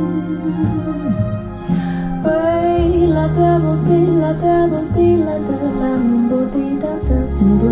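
Recorded music played back over Bowers & Wilkins Formation Duo wireless speakers: a melody stepping from note to note over held bass notes, the bass moving down to a lower note about seven seconds in.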